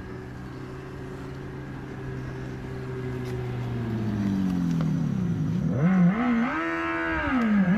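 Revolt RV400 electric motorcycle's artificial engine sound from its onboard speaker, a steady pitched hum that grows louder as the bike approaches. About four seconds in its pitch drops, then near the end it swings up and down several times.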